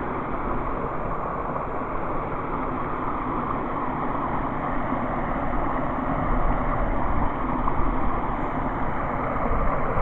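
Steady rushing of flowing water, as from a brook or water spilling through a beaver dam, an even hiss with no distinct strokes.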